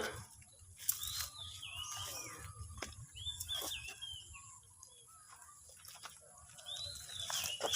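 Birds calling: three short, wavering high-pitched phrases, about a second in, near the middle and near the end, with a few sharp clicks in between.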